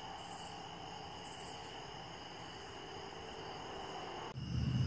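Night chorus of crickets and other insects: a steady high trilling with a faint pulse about once a second. Near the end it cuts abruptly to a low steady rumble.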